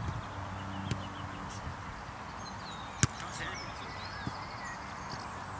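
A football kicked on grass: one sharp thud about three seconds in, the loudest sound, with a smaller knock about a second in. Birds chirp in the background.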